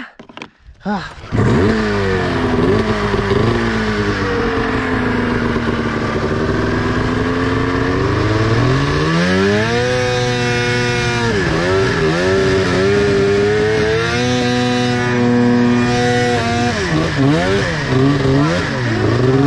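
Snowmobile engine opening up sharply about a second in and revving hard, its pitch climbing and dropping again and again as the buried sled is worked out of deep snow and driven on through powder.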